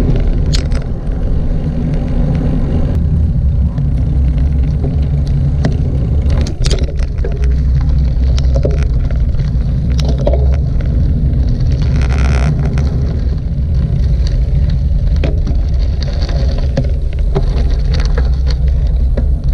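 Wind rumbling on the microphone of a bike-mounted action camera while a road bike rides along, with tyre noise and scattered clicks and knocks.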